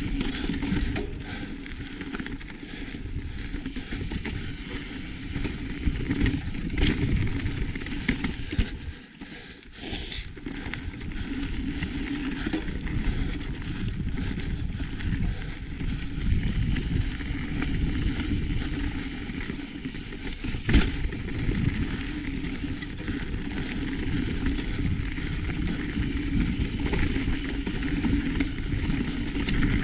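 Mountain bike riding fast down a rough dirt trail: a steady rumble of wind on the microphone and tyres on dirt and rock, broken by a few sharp knocks and clatters from the bike, the loudest a little past two-thirds through.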